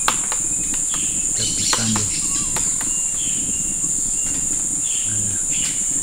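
Steady, high-pitched shrill drone of forest insects, the loudest sound throughout, with a few short high bird chirps. A handful of sharp, irregular taps stand out, loudest right at the start, as a woodpecker pecks at the tree trunk.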